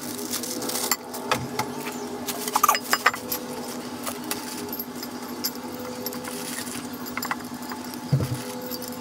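A steel plate being handled over linear guide rails and their carriage blocks, making irregular metal clicks and knocks with a dull thud near the end, over a steady low hum.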